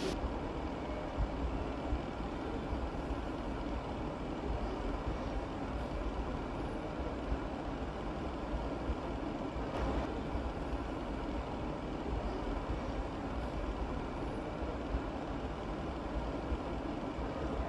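A chef's knife cutting a raw potato on a plastic cutting board, giving a few soft knocks now and then, over a steady low rumble of background noise.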